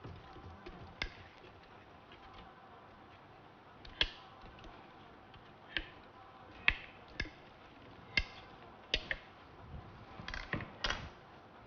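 Knife knocking on a cutting board as a watermelon is cut: single sharp taps at irregular intervals of a second or so, with a quick cluster near the end.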